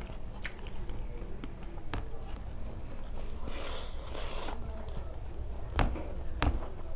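Close-miked eating by hand of rice with fish curry: chewing and wet mouth sounds, with a few sharp smacking clicks and a longer noisy stretch midway.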